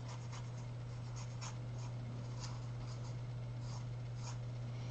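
No. 6 round watercolour brush stroking and dabbing on watercolour paper, wetting the paint: faint, irregular scratchy strokes. A steady low hum runs underneath.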